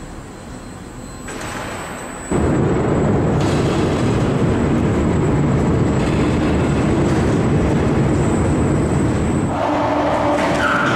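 Overhead crane running as it travels with a load of steel plates: a steady mechanical rumble that jumps abruptly louder about two seconds in and holds steady, with a few steady tones joining near the end.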